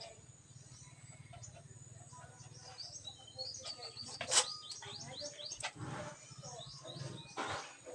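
Small birds chirping in quick, short calls, busiest in the middle stretch, with one sharp click about halfway through.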